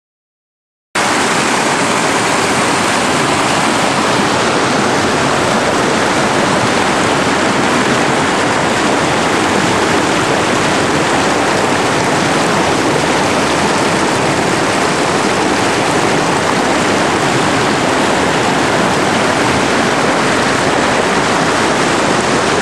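Steady rush of water from a rocky mountain stream cascading over boulders, starting abruptly about a second in.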